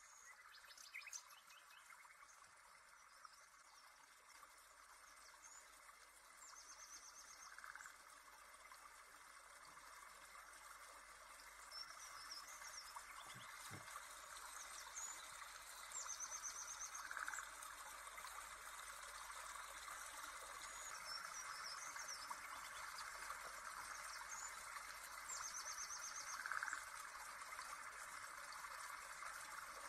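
Faint background ambience track of bird chirps and trills over a steady rushing hiss like a stream. The same chirps come back about every nine seconds, as in a looped recording.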